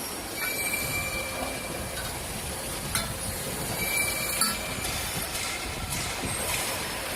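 CNC hydraulic mandrel tube bending machine at work: steady machine noise with brief high metallic squeals and a few sharp clicks, the sharpest about four and a half seconds in.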